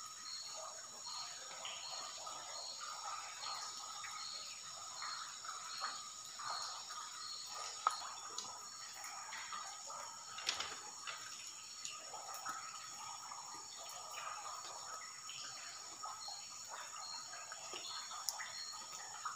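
Stream-side ambience: water trickling and dripping, under a steady high whine and a faint chirp repeating about three times every two seconds.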